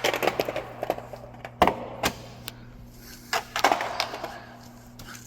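Plastic trim panels on a 2025 Ford Bronco's front bumper being pried off by hand: a run of sharp clicks and snaps as the retaining clips let go, the loudest about a second and a half in, with scattered knocks after, over a steady low hum.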